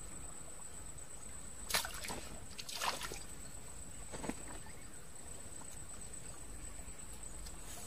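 Three short splashes in shallow water, about two, three and four seconds in, over a faint steady trickle and a thin steady high whine.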